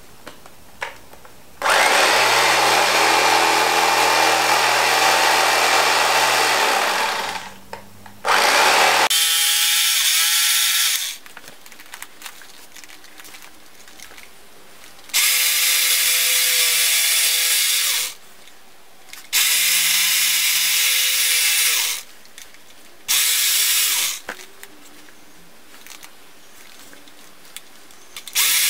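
Electric carving knife running as its blades saw through rifle-case foam, in six bursts of a few seconds each that start and stop abruptly. The longest burst is near the start.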